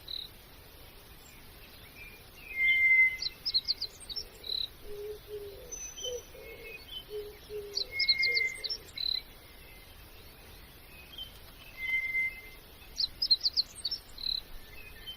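Birds calling: a quick series of high chirps, then a short whistled note, a pattern that repeats about every five seconds. A few soft low hooting notes come in around the middle.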